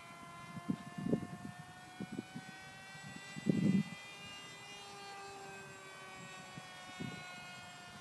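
Electric motor and propeller of a radio-controlled model airplane in flight, a steady drone whose pitch drifts slowly up and down as it passes overhead. A few short low thumps cut in, the loudest about three and a half seconds in.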